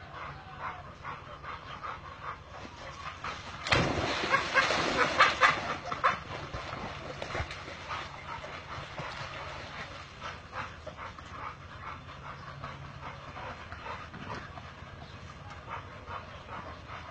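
Small dogs yipping and whimpering. About four seconds in, a sudden loud splashing lasts a couple of seconds as a dog goes into muddy water.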